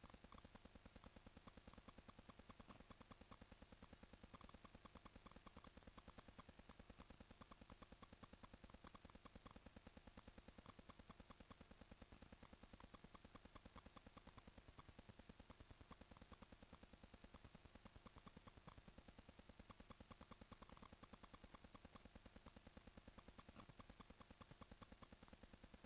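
Near silence with a faint, fast, perfectly even ticking: a countdown stopwatch's tick sound.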